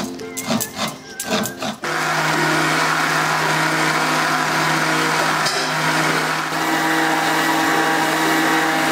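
Electric mixer grinder with a steel jar running steadily, grinding coconut, onion, garlic and tomato into a masala paste. It comes in suddenly about two seconds in, after a short stretch of background music.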